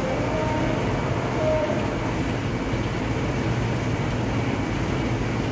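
Heavy rain pouring steadily onto wet concrete, a dense even hiss with no letup.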